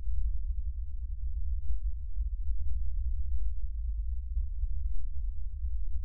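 A loud, unsteady low rumble with nothing higher in pitch above it. No clunks or other tool sounds stand out.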